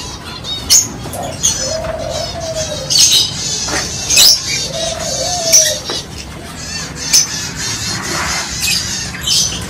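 Aviary birds calling together: a dove coos a low phrase twice, about three seconds apart, over frequent high chirps and sharp squawks from the cage birds, the squawks being the loudest sounds.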